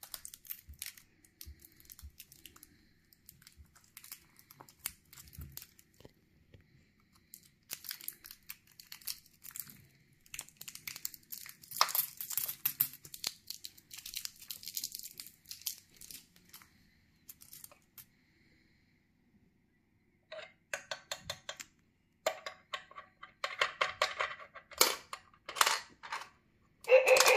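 Hands handling coins and a plastic toy coin bank: scattered clicks and scraping, a stretch of crinkly rustling in the middle, then quick runs of small clicks and coin clinks, louder near the end as a coin is set on the bank's doorstep.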